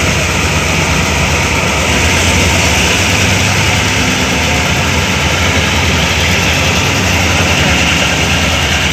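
Diesel locomotives running with a steady low engine drone and a broad hiss as the train moves along the track.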